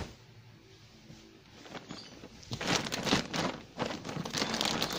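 Plastic bags and packaged bedding rustling and crinkling as they are pulled out of a cardboard box. It is quiet at first and becomes loud and continuous about halfway in.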